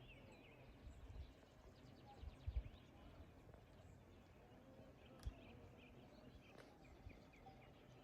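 Near silence with faint high bird chirps in short runs, and a couple of soft low thumps about two and a half and five seconds in.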